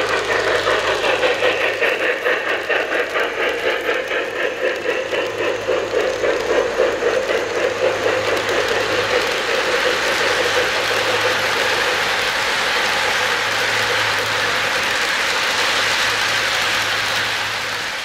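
O-scale three-rail model steam locomotive passing close, its steam chuff beating in a fast, even rhythm over the rumble of wheels on the track. In the second half the freight cars roll by with a steadier rolling rumble.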